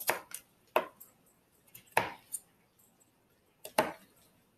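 Kitchen knife chopping ginger on a cutting board: about five separate, unevenly spaced knocks of the blade striking the board.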